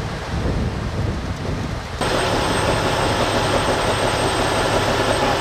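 Low rushing, wind-like rumble, then about two seconds in an abrupt change to a heavy rotator tow truck's diesel engine running steadily with a faint high whine.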